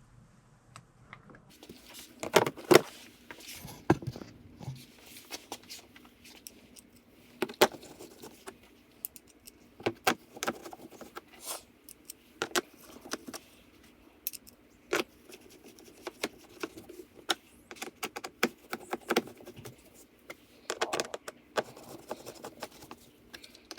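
Irregular clicks, taps and light knocks of small parts and tools being handled at a small portable generator just after its oil fill, such as the fill cap and oil bottle being put back, over a faint steady hum.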